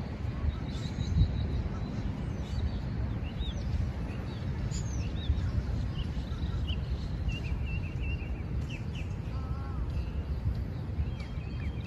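Outdoor park ambience: small birds chirping and tweeting in many short calls throughout, over a steady low rumble.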